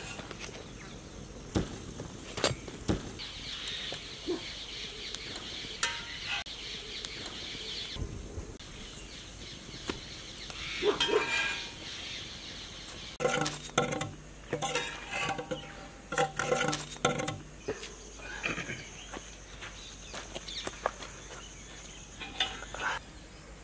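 A long metal spatula clinks and scrapes on a flat iron griddle as pancakes are turned and lifted off, in scattered sharp taps. Birds call in the background, thickest about two-thirds of the way through.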